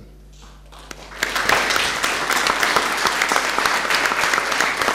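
Audience applauding: after a short quiet, many people break into clapping about a second in and keep clapping steadily.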